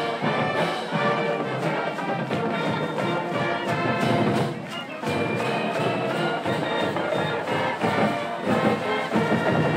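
Marching band playing a brass-heavy tune over a steady drumbeat.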